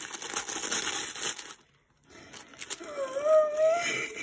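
Tissue paper crinkling and rustling as a gift is unwrapped, breaking off for a moment about halfway. Near the end comes a drawn-out, high, wavering vocal sound lasting about a second, the loudest thing here.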